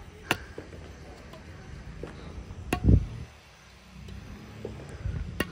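Three sharp cracks about two and a half seconds apart, typical of a badminton racket striking a shuttlecock, over a steady low rumble.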